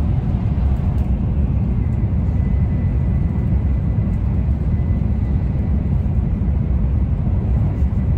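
Shinkansen bullet train heard from inside the passenger carriage: a steady low rumble of running noise. A faint, thin, steady tone joins about two seconds in.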